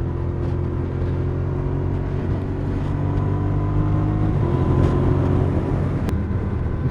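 Suzuki SV650S V-twin motorcycle engine running at a steady motorway cruise, with wind and road noise; the engine note shifts slightly about four seconds in.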